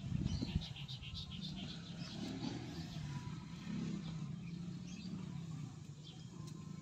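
A motor engine hums steadily at a low pitch that wavers slightly, with a few sharp knocks just at the start.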